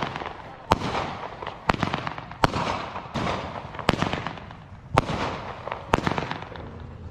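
Aerial fireworks bursting in quick succession, a sharp bang about once a second with a hissing crackle between the bangs.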